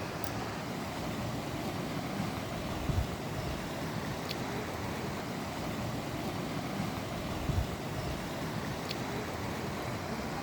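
Steady rushing wind noise on the microphone, with two brief low buffets about three seconds and seven and a half seconds in, and a faint short high tick every few seconds.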